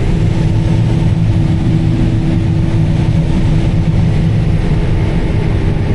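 John Deere S780 combine running steadily under load, a deep engine hum with a steady higher drone over it, heard from inside the cab while it harvests and unloads on the go.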